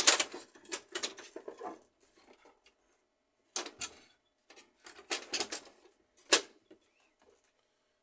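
Plastic clicks and knocks from an HP LaserJet 1300's casing and cover as they are handled and fitted in place. The sound comes as a dense run in the first two seconds, two short clusters in the middle, and one sharp click about six seconds in.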